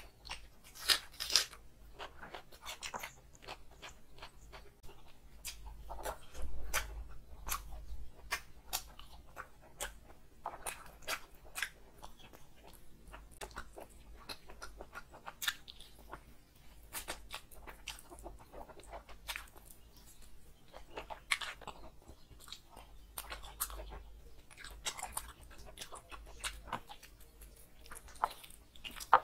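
Close-miked eating sounds: chewing, lip smacks and bites into a piece of curried chicken and pulao rice eaten by hand, in irregular short clicks and smacks.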